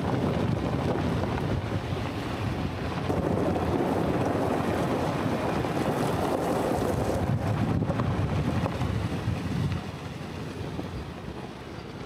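Wind buffeting the microphone, with a low rumble underneath; it eases off a little about ten seconds in.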